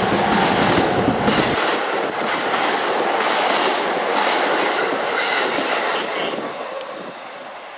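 A JR East E233 series electric train running past the platform, its wheels clicking over the rail joints. The deep rumble drops away suddenly about one and a half seconds in, and the sound fades over the last couple of seconds.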